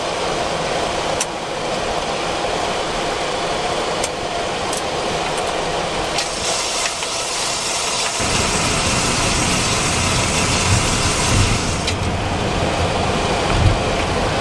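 Boeing 737-400 cockpit noise while taxiing after landing: a steady engine and airflow noise, with a few sharp clicks in the first seconds. A hiss joins about six seconds in and dies away near the twelve-second mark, and a low rumble grows from about eight seconds on.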